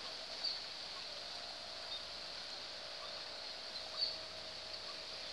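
Hummer bow on a flying wau puyoh kite, droning steadily with a held mid-pitched hum over a thin high whine; the hum firms up about a second in. Two faint ticks are heard, about half a second and four seconds in.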